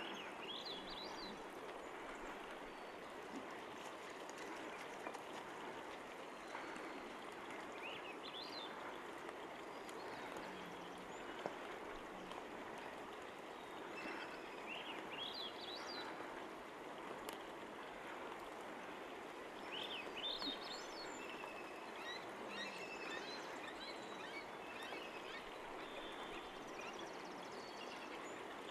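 Faint, steady rush of running water, with short, high, rising bird calls coming in small clusters several times.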